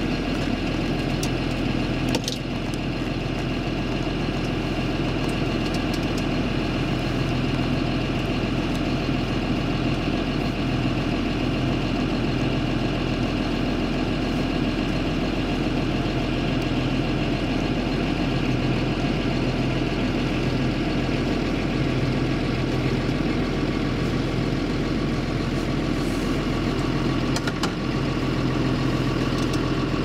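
Claas Jaguar 950 self-propelled forage harvester chopping maize, with a tractor hauling the silage trailer alongside; the engines run in a steady drone with a constant hum. A brief click about two seconds in.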